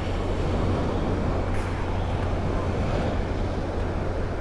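Steady wash of wind and small surf waves on a beach, with wind on the phone's microphone and no distinct events.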